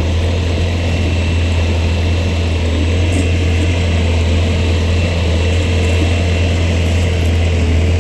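Skid steer engine running steadily as the machine drives: a loud, deep, even drone with a fainter steady tone above it.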